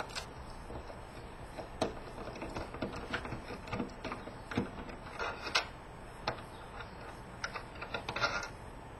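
Phillips screwdriver working screws out of a PS3 Blu-ray drive: scattered light clicks and small metal-on-metal knocks, coming faster near the end.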